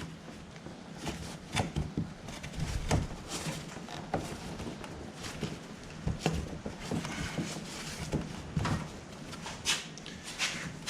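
Irregular light clicks and knocks of parts and tools being handled, over a steady low hum.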